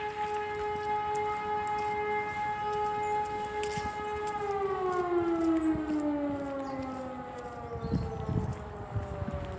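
Electromechanical civil-defence siren sounding the fire alarm that calls out the volunteer fire brigade: a steady tone is held, then about four seconds in the pitch starts falling as the rotor winds down. A second siren winds down faster alongside, and wind buffets the microphone near the end.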